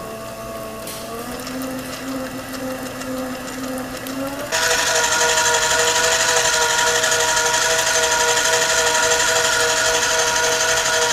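Electric stand mixer whisking eggs and sugar, its motor running with a steady whine. The pitch rises slightly about a second in. About four and a half seconds in it suddenly gets louder and higher.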